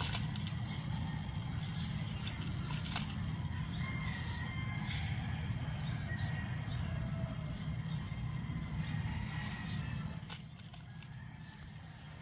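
Outdoor ambience: a steady low rumble and a steady high whine, with birds chirping and short clicks of a black cat crunching dry kibble. It all drops quieter about ten seconds in.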